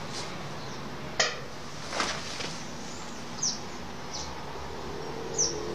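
Outdoor garden ambience: a steady hiss with a few short high chirps, and two brief rustling knocks about one and two seconds in as a man shifts his seat on the grass.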